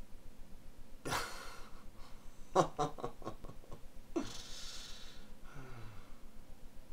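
A man holding back laughter: a sharp breath out about a second in, then a quick run of short chuckles, then a long breathy laughing exhale.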